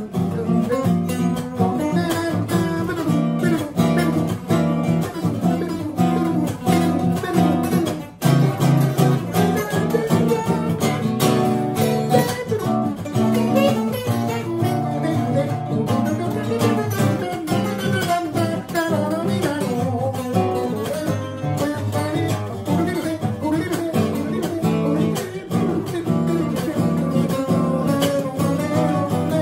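Two acoustic guitars played together, strummed and picked chords and runs, with a brief break about eight seconds in.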